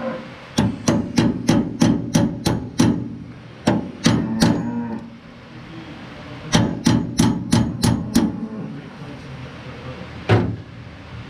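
Ball-peen hammer striking a steel punch held against a finger-wheel hub on a New Idea 323 corn picker's husking-bed shaft: sharp metal-on-metal blows in three quick runs of about four a second, each blow ringing briefly, with one last single blow near the end.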